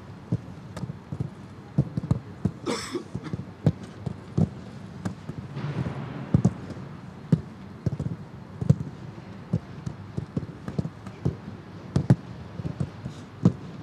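Footballs being kicked and passed in a training drill: a string of irregular dull thumps, one or two a second.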